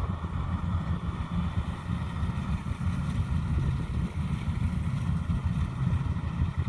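Kubota DC-105X combine harvester's diesel engine running steadily, a continuous low drone with machine noise above it.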